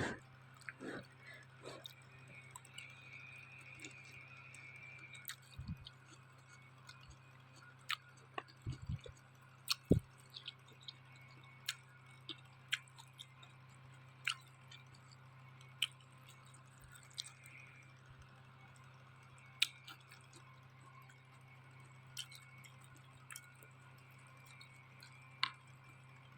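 Quiet noodle-eating sounds: chewing, with scattered sharp clicks at irregular intervals, the loudest about ten seconds in, over a steady low hum.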